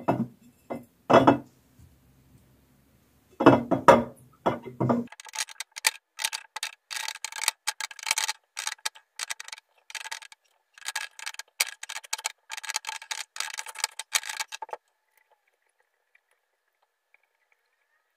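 Whole fresh garlic bulbs being packed by hand into a large glass jar: a long run of light clicks and taps of the bulbs against the glass, which stops about three-quarters of the way through.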